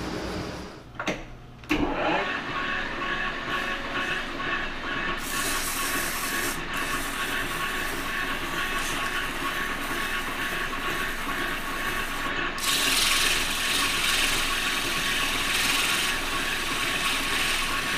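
Metal lathe starting up about two seconds in and running steadily with a gear whine. A hand file is held against the spinning spray-welded seal journal to smooth off its turned surface, adding a hissing scrape for about a second near six seconds and again through the last five seconds.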